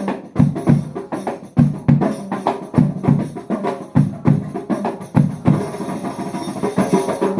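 Percussion ensemble playing a steady rhythm for a sound check: deep drum strikes about twice a second, with lighter hits in between.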